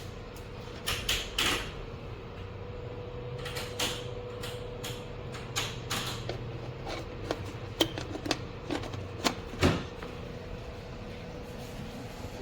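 A series of short, sharp clicks and knocks, as of a plastic appliance being handled, over a steady low hum with a faint constant tone.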